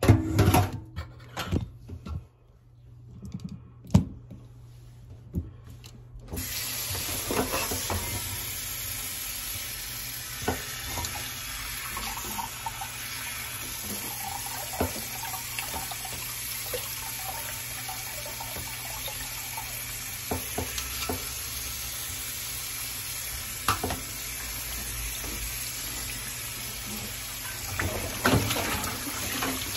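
A few knocks and clatter, then about six seconds in a kitchen tap is turned on and water runs steadily through shredded cabbage in a mesh strainer into a glass bowl in a stainless steel sink. Occasional clinks and knocks come from handling the strainer and bowl, more of them near the end.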